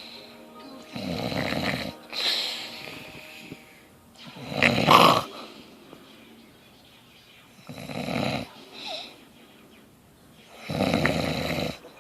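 A person snoring in their sleep: four snores about three seconds apart, the second the loudest, with a fainter breathy sound after some of them.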